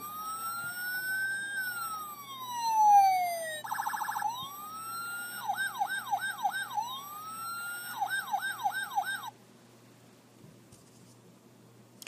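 Electronic emergency-vehicle siren: one long wail rising and then falling in pitch, then a fast warble, then short rising wails alternating with rapid yelping cycles. It cuts off about nine seconds in.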